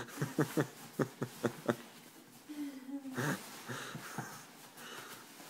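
A person laughing in a quick run of wheezy breaths for nearly two seconds. After that comes softer rustling as a sleeping bag is pushed and squeezed into a backpack.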